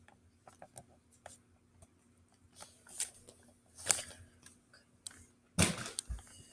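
Scattered faint clicks and taps of handling noise, with a few louder rustles about halfway through and near the end.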